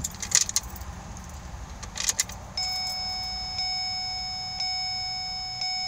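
Keys jangling and clicking as the ignition key of a 2009 Ford Escape is turned twice, cycling the ignition. Then, from about two and a half seconds in, the dashboard warning chime sounds, a steady tone re-struck about once a second.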